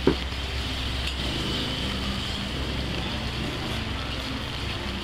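Busy wet street: a motor vehicle engine running close by over a steady wash of background noise, with one brief knock at the start.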